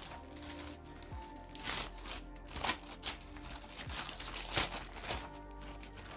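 Thin plastic courier mailer crinkling and rustling as it is torn open by hand and a rubber mouse pad is slid out, in a handful of short crackles, the loudest a little past the middle. Soft background music runs underneath.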